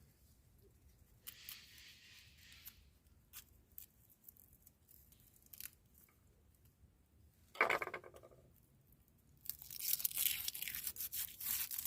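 Handling noises: scattered light clicks, then dense tearing and crinkling from about nine and a half seconds in, with a short pitched squeak a little before it.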